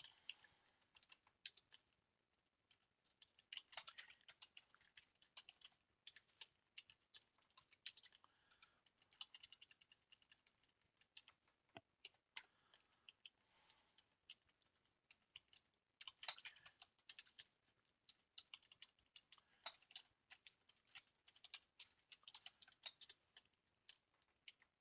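Faint typing on a computer keyboard, in quick bursts of keystrokes separated by short pauses, as a spreadsheet formula is typed in.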